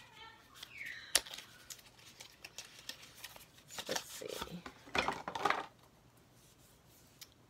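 Makeup palettes and compacts being handled and sorted: a sharp click about a second in, then clattering and rattling of the cases.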